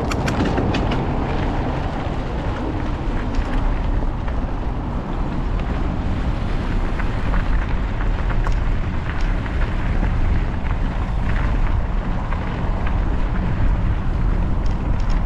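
Wind buffeting the microphone of a moving mountain biker's camera, over mountain bike tyres rolling on dirt and gravel, with scattered small clicks and rattles.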